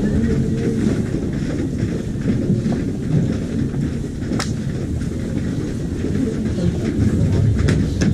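Muffled stadium crowd noise carrying down the players' tunnel as a steady low rumble, with a couple of sharp clicks, one about halfway through and one near the end.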